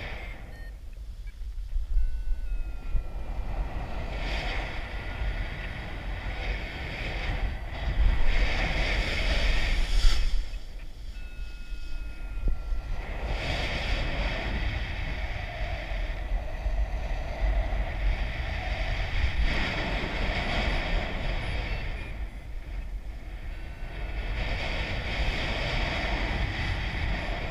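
Wind rushing over the camera microphone of a paraglider in flight, a steady buffeting noise that swells louder about two seconds in and again around eight to ten seconds, then eases.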